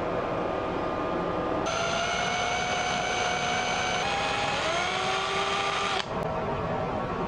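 Flex-shaft rotary tool motor whining as it spins a twisted-wire screw eye into a wooden lure body. The pitch drifts and rises a little, and the sound changes abruptly a few times.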